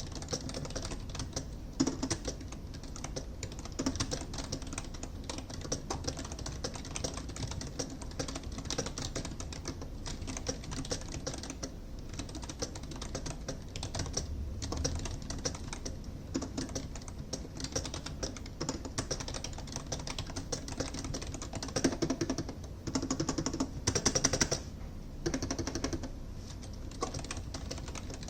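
Continuous typing on the GEODMAER 65% wireless keyboard, a membrane keyboard built in the style of a mechanical one: a steady stream of keystroke clacks, growing louder for a few seconds near the end.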